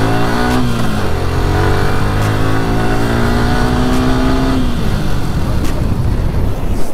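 Yamaha R15 V3's single-cylinder engine under hard acceleration. Its pitch climbs through first gear, drops at the upshift into second about half a second in, and climbs again. About four and a half seconds in it falls away.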